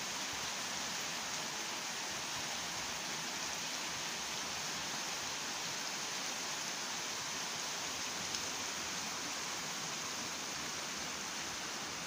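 Shallow stream running over stones in small riffles: a steady, even rush of flowing water.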